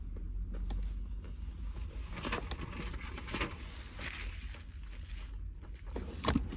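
Takeout food packaging being handled inside a car: scattered rustles and light clicks, with a few louder crinkles between about two and four seconds in and a couple of sharp clicks near the end. A low steady car-cabin rumble runs underneath.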